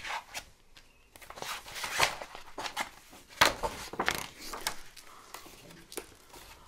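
A paperback picture book being handled and opened, its pages rustling and flapping in a string of short, irregular swishes.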